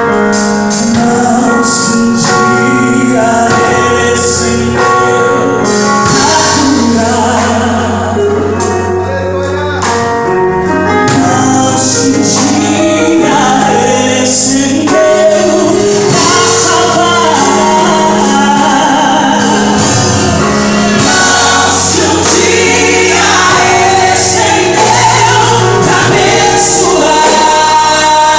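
Live gospel worship song: singing over a full band with sustained bass and chords.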